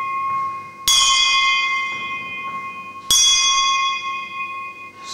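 A bell struck twice, about two seconds apart, each stroke ringing on and slowly fading. The ring of an earlier stroke is still dying away at the start.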